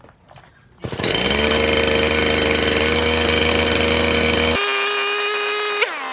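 STIHL brush cutter's small petrol engine starting about a second in and running steadily at speed. Near the end there is a quick blip of revs, and then it settles to a lower, slower run.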